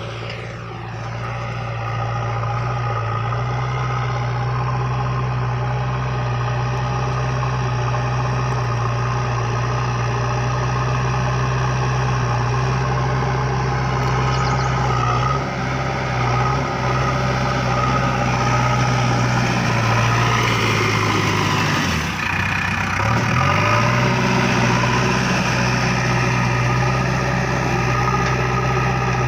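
Diesel engine of a JCB 3DX backhoe loader running steadily at work, with a mechanical whine over the engine note. About three quarters of the way through, the engine pitch sags sharply for a moment and then picks back up.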